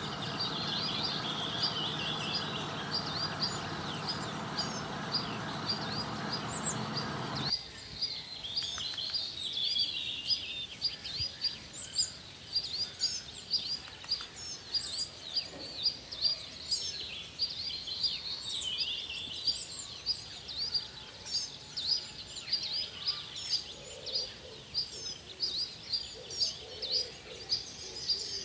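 Birds chirping in many quick, short, high notes, several a second. For the first seven seconds or so a steady rushing noise runs underneath, then cuts off suddenly.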